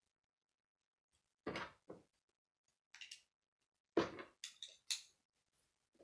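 Small plastic Lego pieces being picked up off a tabletop and pressed together by hand: about six short clicks and clatters with quiet gaps between them.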